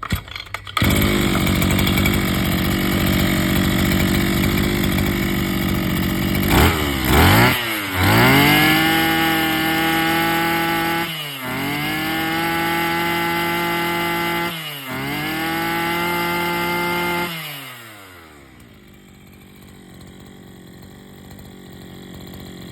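Maruyama 26cc two-stroke brush cutter engine catching about a second in and running at idle. It is then revved up to full throttle three times, each held for a few seconds, before dropping back to a quieter idle near the end. It runs smoothly, which the seller calls running very well.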